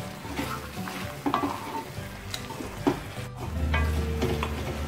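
Wooden spatula stirring and scraping thick, nearly dry beef roast around an aluminium pan, the masala sizzling over the flame, in irregular scrapes and knocks. It is kept moving so the gravy, cooked without added water, does not catch on the bottom.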